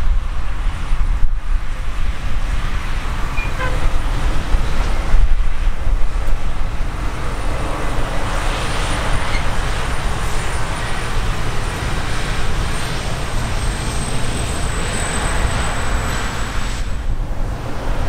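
Claas combine harvesters running while cutting and threshing grain: a steady low engine drone under a wash of machinery noise, with a faint high whine that slowly falls in pitch in the second half.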